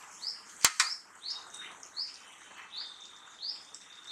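Hot oil sizzling faintly as sabudana vadas deep-fry, under a bird's short high chirps repeating roughly twice a second. One sharp click comes about two-thirds of a second in.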